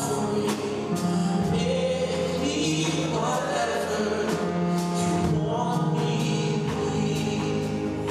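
Church praise team singing a gospel song in harmony, with instrumental backing and a steady beat.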